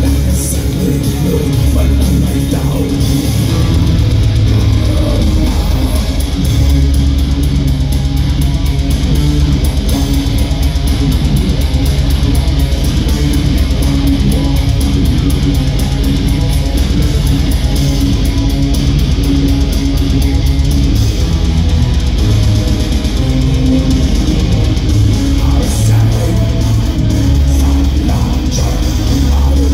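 A live metal band playing loud, with distorted electric guitars, bass guitar, keyboards and a fast steady drum beat that comes in about four seconds in.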